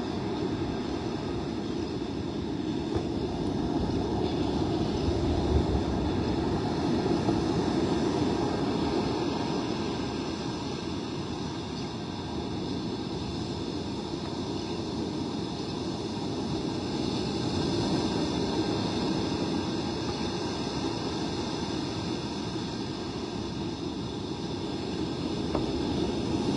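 Wind and surf making a steady low rumble that swells and eases slowly over several seconds.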